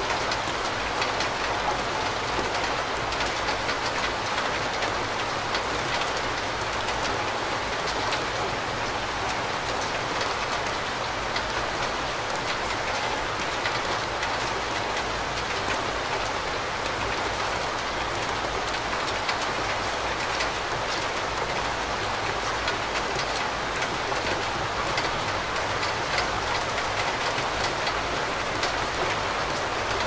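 Steady rainfall: an even, unbroken hiss of many drops, with faint single drops ticking through it.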